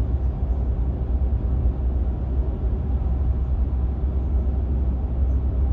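Union Pacific mixed-manifest freight train rolling past, a steady low rumble of wheels on rail.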